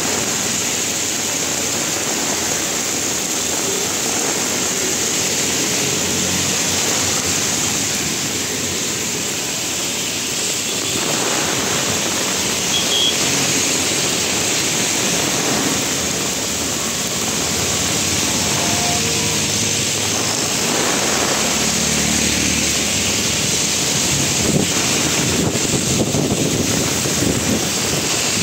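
Heavy rain pouring steadily onto a street, with cars and auto-rickshaws swishing past on the wet road.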